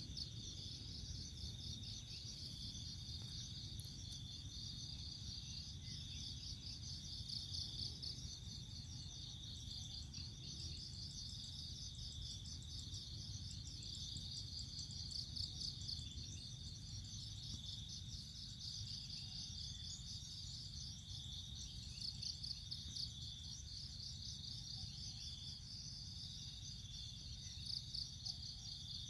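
Steady high-pitched chirring of insects, a fast even trill that runs on without a break, over a low steady hum.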